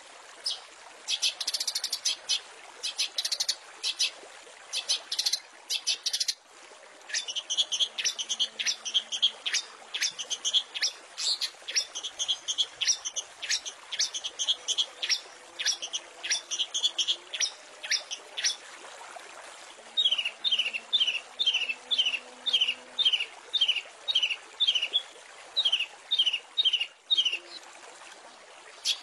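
Long-tailed shrike (cendet) singing in fast runs of short, sharp chirping notes; after a brief break about six seconds in, the song resumes, and from about twenty seconds on it becomes a run of short falling notes, about two a second.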